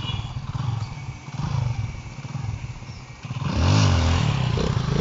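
Dirt bike engine running at low revs, then revved up sharply about three and a half seconds in as the front wheel lifts into a wheelie. The pitch rises, falls back, and the engine stays louder while the wheelie is held.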